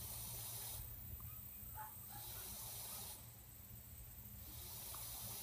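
Faint background: a high hiss that comes and goes every second or so over a low steady rumble.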